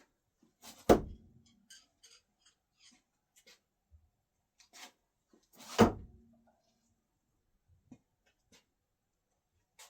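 Two thrown flathead screwdrivers hitting and sticking in a throwing target, about five seconds apart, each a sharp thunk with a short low ring after it.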